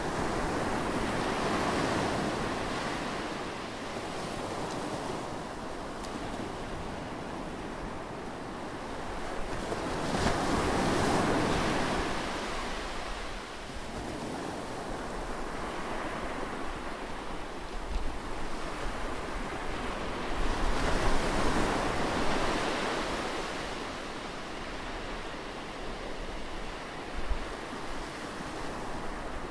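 Ocean waves washing in: a rushing noise that swells and ebbs in slow surges several seconds apart.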